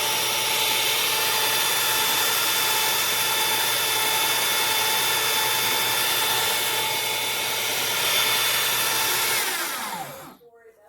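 The built-in burr grinder of a De'Longhi La Specialista espresso machine running steadily as it grinds beans, then its motor winds down with a falling whine and stops near the end.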